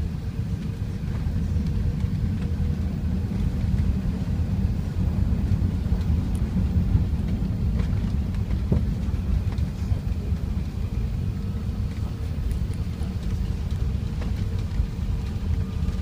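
Steady low rumble of Airbus A380 cabin noise, engines and airflow heard from inside the cabin during landing, with a faint steady hum and a single light click about two-thirds of the way through.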